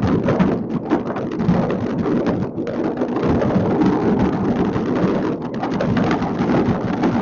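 Dense barrage of many distant fireworks going off at once: countless overlapping bangs and crackles that merge into a steady, unbroken rumble.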